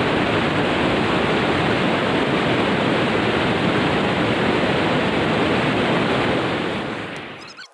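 Steady rushing of water, an even loud noise that fades out over the last second or so.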